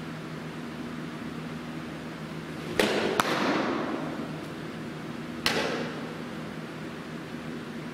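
Softball smacking into a catcher's leather mitt: a sharp pop about three seconds in with a second close behind it, then another about two and a half seconds later, each echoing through a large indoor hall.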